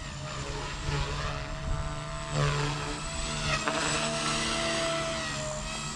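Blade Fusion 180 electric R/C helicopter in flight without its canopy, its brushless motor and rotor head giving a steady whine at high head speed. The pitch shifts briefly a couple of times in the middle.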